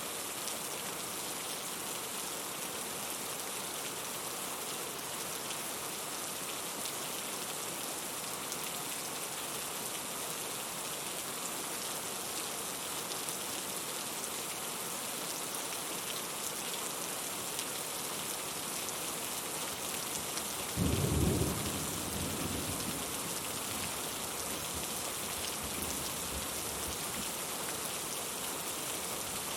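Steady rain, an even hiss of drops falling on a surface. About two-thirds of the way in a low rumble of thunder breaks in suddenly, peaks for about a second, then fades over several seconds while the rain goes on.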